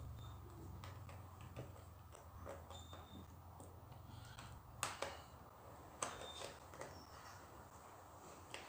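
Small plastic LEGO cheese slopes being pried off and pressed onto a baseplate: faint scattered clicks and taps, with a few sharper clicks about five and six seconds in, over a low steady hum.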